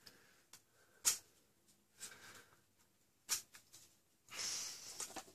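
Foam darts being pushed into a clear plastic blaster magazine by hand: a few soft, separate plastic clicks, then a brief rustle near the end.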